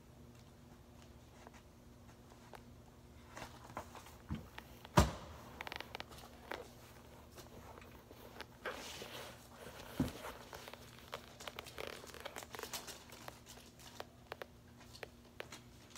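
Bare foot rubbing and shifting inside a loose suede sneaker, with light scuffing against a hard floor, making scattered rustling and small clicks. A sharp knock comes about five seconds in and a softer one about ten seconds in, typical of the shoe's rubber sole striking the floor.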